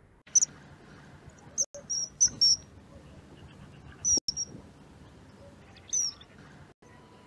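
Common kingfisher calling: short, shrill, high whistles in irregular groups, one near the end sliding down in pitch, over a faint background hiss.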